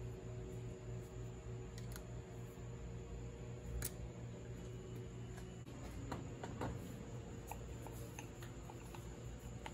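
Faint clicks and light taps of small metal parts being handled, an Allen key working a set screw in an aluminum adapter, then a lathe chuck being fitted, over a steady low hum. The clicks come singly early on and cluster together past the middle.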